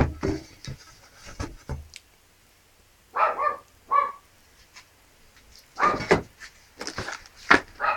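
A dog barking a few short times, mixed with scattered clicks and knocks of something being handled.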